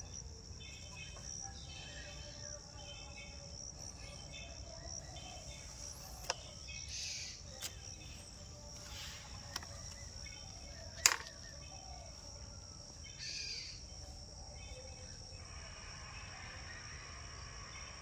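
Insects buzzing steadily with high, rhythmic chirping, the outdoor drone of crickets. A few sharp clicks cut through, the loudest about 11 seconds in, along with a few brief rustling hisses.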